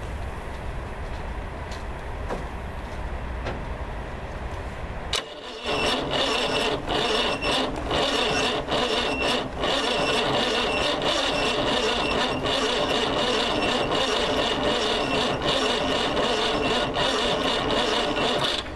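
An electric starter cranks the 1991 Iveco diesel engine for about thirteen seconds without it catching. The starter whines steadily under a rough, uneven chugging. The engine has sat for five years on stale fuel. The cranking begins with a click about five seconds in and cuts off abruptly near the end.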